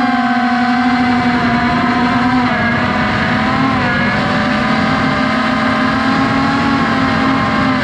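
FPV drone's electric motors and propellers whining steadily, the pitch shifting a little a few times as the throttle changes.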